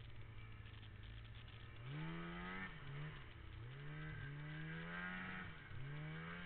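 Snowmobile engine idling steadily, then revved three times, the pitch climbing, holding briefly and dropping back each time.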